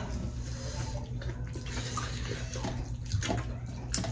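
Close-up wet eating sounds: fingers squishing and mixing finger-millet dhido with soup, and mouths smacking, with a few sharper wet smacks scattered through and near the end.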